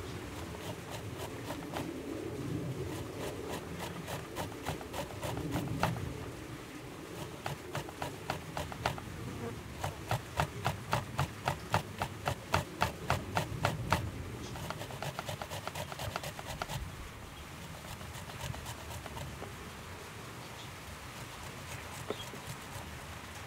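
A vegetable being grated on a metal box grater into a bowl: a rhythmic rasping stroke, about three a second, loudest in the middle. The strokes thin out and grow soft for the last several seconds.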